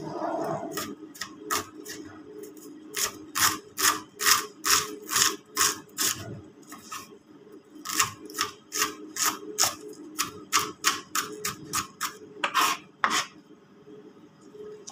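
Kitchen knife chopping onions on a cutting board: a quick run of sharp knocks, about two to three a second, with a brief pause partway through before the chopping resumes.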